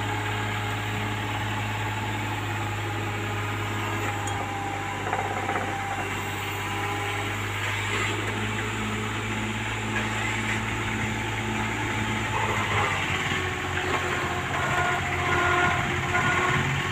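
Small excavator's diesel engine running steadily while the operator works the boom and arm; the engine note shifts about three-quarters of the way through.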